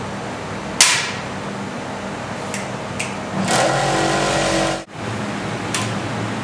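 Chocolate moulding machinery running with a steady hum; a sharp clack about a second in, a few lighter clicks, then a louder rushing noise for about a second and a half that cuts off abruptly.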